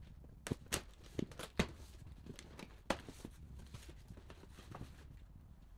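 A cardboard shipping box being opened: a knife slicing the packing tape, then the flaps pulled back. It makes a string of sharp, irregular scrapes and clicks, loudest in the first three seconds.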